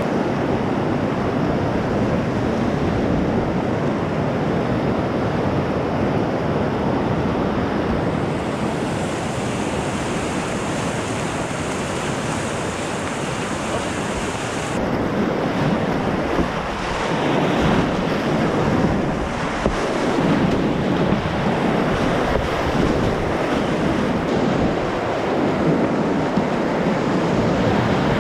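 Whitewater river rapids rushing loudly and steadily, heard from a kayak in the middle of the rapid: continuous churning white water with no break.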